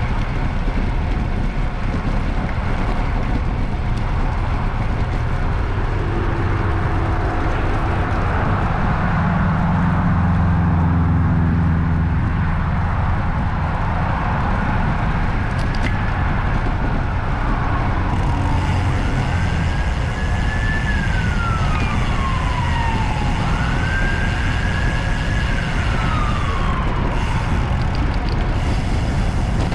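An emergency vehicle's siren wailing in slow rising and falling sweeps from about halfway through, over steady traffic and road noise. A vehicle engine hums louder for several seconds about a third of the way in.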